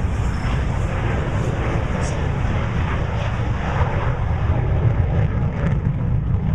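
Steady rumble of aircraft engines from planes on the airfield, mixed with heavy wind buffeting the microphone.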